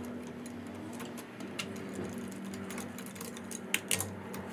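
Hand socket wrench working on a car's wheel bolts: a run of light metal ticks and clicks as the bolts are undone by hand, with a few sharper clinks near the end.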